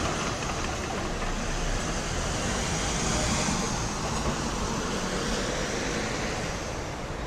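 Steady city street traffic noise, growing a little louder about three seconds in.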